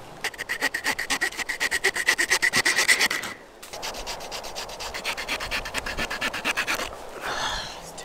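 Swiss Army knife saw blade sawing through a tree branch, trimming a slingshot fork's arm to length: quick, even back-and-forth strokes. The sawing stops briefly about three seconds in, then picks up again more quietly.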